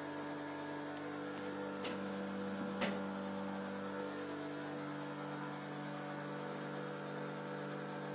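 Vibration motors clamped to a small saucepan braced against the wall, humming steadily and heard through the wall from the neighbouring room as a hard, drill-like drone.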